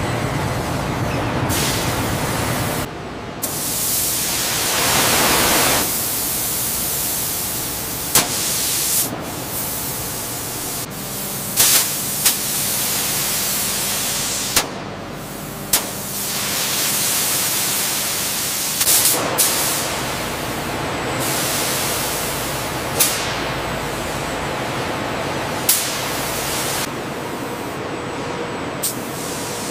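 Factory machinery noise: a steady hiss with sharp clicks or clanks breaking through every few seconds.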